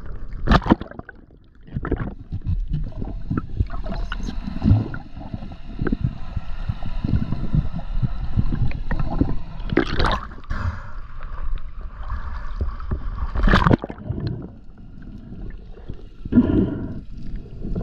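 Water gurgling and sloshing around a camera at and just below the sea surface, with sharp splashes. A faint steady hum of several high tones runs through the middle.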